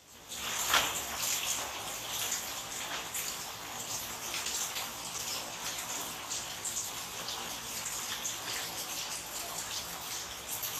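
Electric arc welding on steel: a steady frying, crackling hiss with many small pops, starting just after the opening moment.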